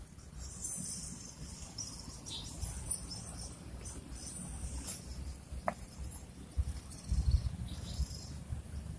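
Insects chirring in the background, a steady high-pitched buzz, with irregular low rumbling thumps on the microphone, loudest about seven seconds in.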